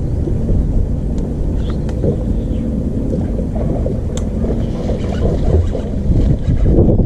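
Wind buffeting the microphone: a steady, loud low rumble that rises and falls, with a few faint ticks.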